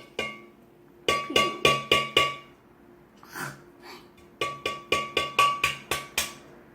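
A utensil clinking quickly and repeatedly against a bowl, in two runs of ringing taps, about four or five a second, typical of eggs being beaten in a bowl.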